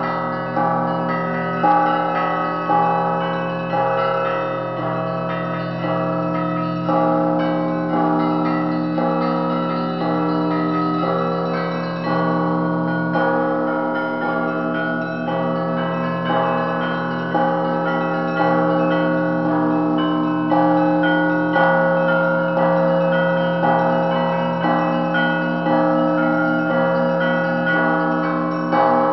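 Russian Orthodox church bells rung together in a peal: a deep hum sustained underneath, with bells struck in a steady rhythm about once a second, each ring overlapping the next.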